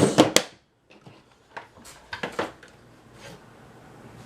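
Scattered light clicks and knocks of small hard objects being handled, with a few sharper clacks at the start.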